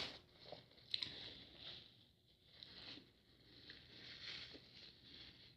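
Faint chewing of a mouthful of food, soft wet mouth sounds coming in short bursts, with a small click about a second in.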